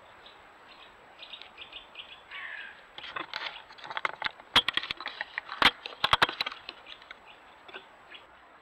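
Footsteps crunching in dry fallen leaves, then close-up rustling and a cluster of sharp clicks and knocks as a trail camera is handled right at the microphone. The loudest clicks come in the middle.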